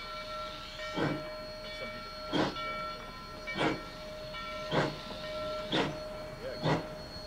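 Rio Grande Southern #20, a narrow-gauge 4-6-0 steam locomotive, chuffing as it pulls a freight train away: sharp exhaust beats about once a second, coming a little faster as it gains speed. A faint steady high tone runs underneath.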